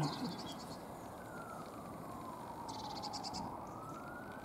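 Emergency-vehicle siren on a slow wail, its pitch sliding down and back up once over several seconds, above a steady background hiss. Two short runs of rapid high ticking come near the start and about three seconds in.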